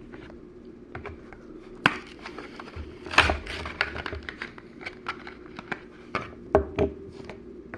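A Hot Wheels blister pack being opened by hand: irregular clicks, crinkles and crackles of plastic and card, loudest about three seconds in and again near the end.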